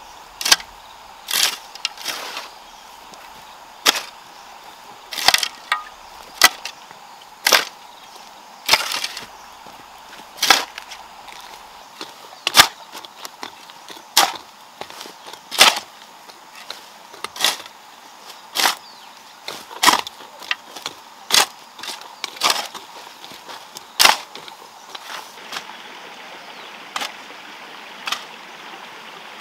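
Metal shovel blade chopping into garden soil by hand, one sharp strike about every second.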